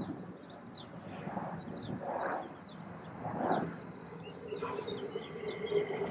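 Small birds chirping, with a few soft rushing swells of noise. Near the end a faint steady whine comes in as a Léman Express electric multiple unit approaches.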